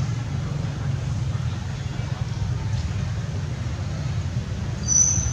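Steady low outdoor rumble with no clear pitch or rhythm, with a short high-pitched tone about five seconds in.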